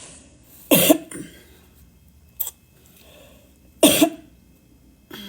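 A woman coughing two hours after extended tummy tuck surgery, holding back because she is scared to push too hard with surgical drains in. There are two short coughs about three seconds apart, about a second in and about four seconds in, with a brief sharp sound between them.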